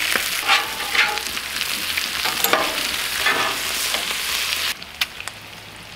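A griddle full of bacon strips sizzling and spitting in their own grease, with metal griddle spatulas scraping and tapping on the flat top as the strips are turned. The sizzle stops suddenly near the end.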